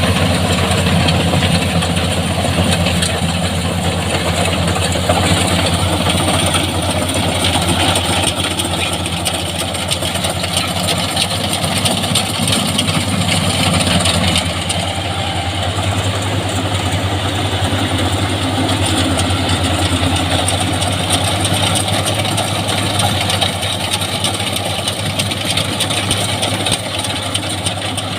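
Rice combine harvester running steadily: its engine drones with a strong low hum under a dense mechanical whir. The sound stays steady throughout, and its higher part eases a little about halfway through.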